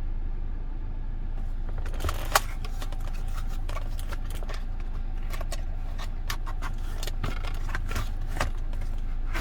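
Small plastic clicks, knocks and light scrapes as a handheld digital multimeter is handled and pushed into its fitted hard case, the sharpest click about two seconds in, over a steady low hum.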